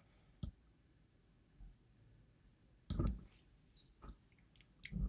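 A few sharp, faint clicks and taps of small metal lock parts being handled while a DOM IX lock is disassembled, the loudest about three seconds in.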